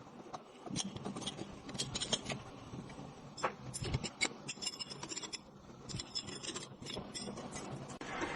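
Metal tools and parts being handled at a workbench: irregular light clicks, clinks and scraping, busiest in the second half, over a faint steady hum.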